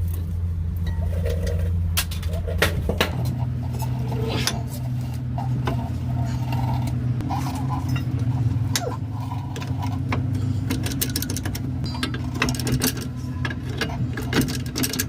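Scattered sharp metallic clicks and knocks from brake pads and tools being handled in a Prevost coach's front disc brake caliper, over a steady low motor drone that steps up in pitch about three seconds in.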